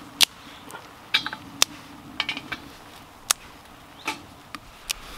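Metal camp cookware and utensils clinking and knocking together: a string of sharp, irregular clinks, the loudest near the start.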